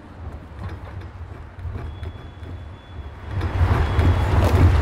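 Metal trolley rolling over paving: a low rumble with rattling and a few clicks, growing much louder about three and a half seconds in.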